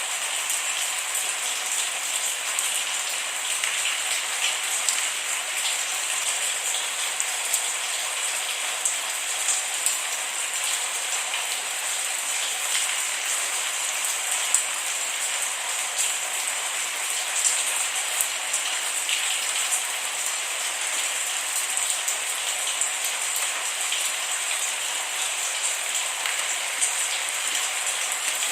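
Steady rain falling on a surface, a continuous hiss with many small individual drop ticks and no thunder.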